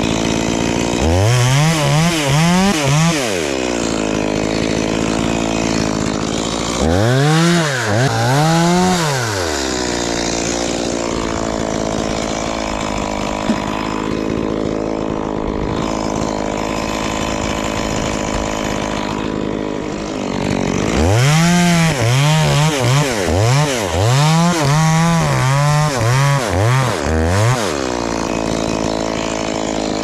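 Two-stroke Stihl chainsaw idling, revved up and dropped back in short throttle bursts: a few blips near the start, two more a few seconds later, and a quick run of about eight near the end.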